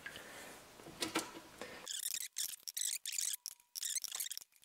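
Faint wet scraping and soft clicks from a wooden spoon lifting cooked broth vegetables out of a stainless pot and tipping them into a plastic bucket, with a patchy crackly hiss from about two seconds in.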